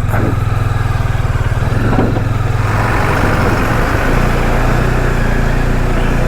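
Motorcycle engine running steadily under way, with rushing wind noise on the microphone.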